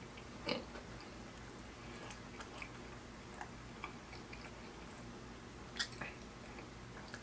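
Close-miked mouth sounds of chewing: soft wet clicks and smacks at irregular intervals, with a louder smack about half a second in and two more near six seconds, over a faint steady low hum.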